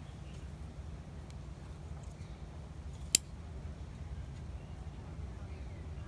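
A single sharp metallic click about three seconds in as the Leatherman Wave+ multitool's serrated blade snaps open and locks, over a steady low background rumble.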